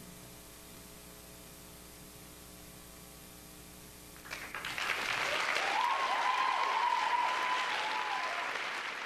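Audience applause that starts about four seconds in and builds, with a drawn-out cheer rising above it; before it, only a low steady hum.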